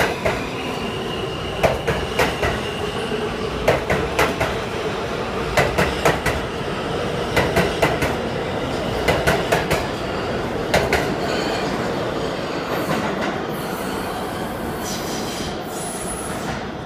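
R160 subway train leaving the station and passing along the platform: a steady rumble with clusters of wheel clicks over rail joints about every two seconds, fading out as the last cars clear the station.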